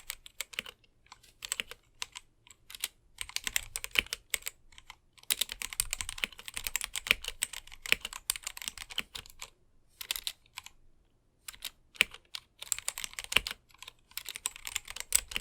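Typing on a mechanical keyboard with stock, unlubed Gateron Black linear switches: fast runs of key clacks broken by short pauses and single key strikes.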